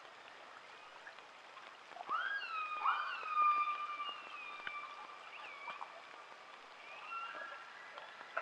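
Orca calls: a few drawn-out pitched calls that swoop up and then slide down and hold, the first about two seconds in and a longer one just after, with a flatter call near the end, over a steady hiss of water noise.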